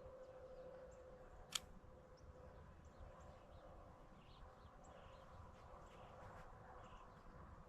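Near silence: faint outdoor ambience with scattered faint high chirps and a faint steady hum, broken by a single sharp click about one and a half seconds in.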